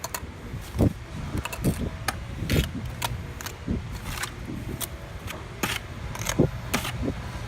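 Steel mason's trowel scraping and clinking against a stacked-stone veneer piece as mortar is buttered onto it: a string of short, irregular scrapes and clicks over a low steady rumble.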